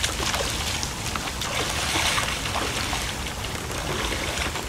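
Wellington boots wading and sloshing through shallow floodwater on grass, with rain pattering as a steady scatter of small drips and ticks.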